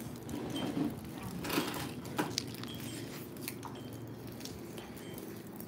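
Wood fire burning in an outdoor grill firebox, with a few faint scattered crackles and pops over a quiet steady background.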